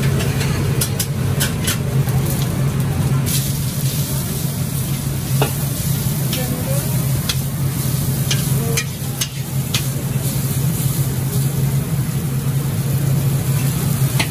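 Hokkien mee noodles frying in a charcoal-fired wok, sizzling as a metal spatula stirs and tosses them and now and then clacks sharply against the wok. A steady low hum runs underneath.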